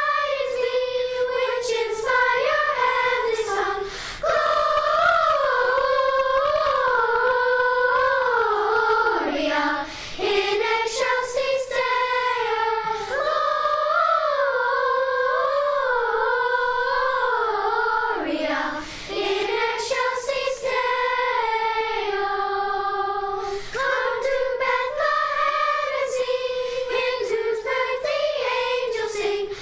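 Youth choir singing long, winding held-vowel phrases, with brief pauses between phrases.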